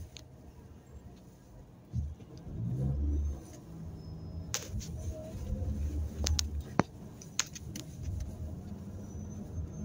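Renault Kadjar's engine heard from inside the cabin while driving, a low rumble that builds about two seconds in and swells again midway as the car pulls along. A few sharp clicks sound in the middle.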